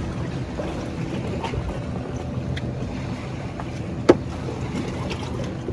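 A boat's motor running with a steady low hum, and one sharp knock about four seconds in.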